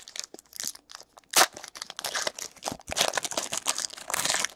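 Hands handling trading cards and a crinkly pack wrapper: a run of rustling, crinkling and quick card flicks, loudest about a second and a half in and again through the second half.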